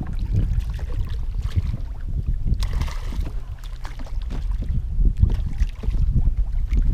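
Wind buffeting the microphone aboard a fishing boat: an uneven low rumble, with a brief hiss about three seconds in.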